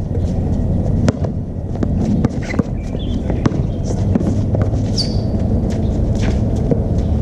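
Outdoor basketball play on a hard court: a basketball bouncing and players' sneakers stepping and squeaking, as scattered sharp knocks, a few short chirps and one falling squeal about five seconds in, over a steady low rumble.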